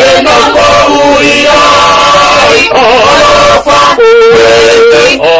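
A family of men, women and children singing a hymn together, several voices in harmony. A little after four seconds in, one note is held for about half a second.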